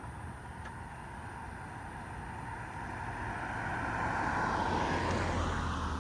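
A vehicle passing by, swelling to its loudest about four to five seconds in, then fading.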